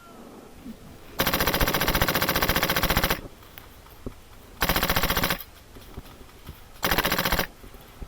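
HPA-powered airsoft gun firing full-auto in three bursts: one of about two seconds, then two shorter ones, each a rapid even stream of shots.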